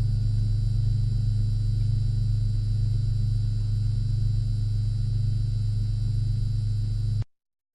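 A steady low drone that cuts off abruptly about seven seconds in.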